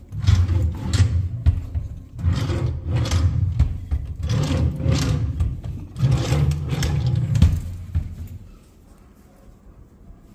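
Wooden drawers in a built-in wardrobe chest pulled open and pushed shut one after another, four times in about eight seconds, each a low rumbling slide on the runners with knocks.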